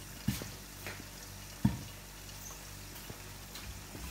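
Peas frying in hot ghee under a glass lid in a covered wok: a faint steady sizzle with occasional sharp pops, two loud ones in the first two seconds and smaller ones after.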